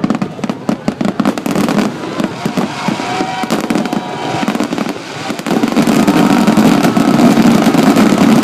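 Fireworks grand finale: a dense, rapid barrage of bangs and crackling shells, growing louder about five and a half seconds in.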